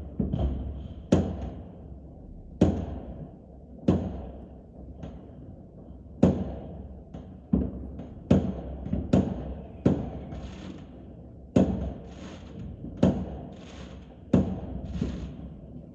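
New Year's fireworks and firecrackers going off: a run of irregular sharp bangs, roughly one a second, each trailing off in a brief echo.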